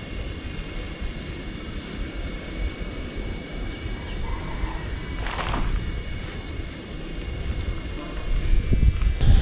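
A loud, steady, high-pitched insect chorus, with a low rumble beneath it; the chorus cuts off abruptly near the end.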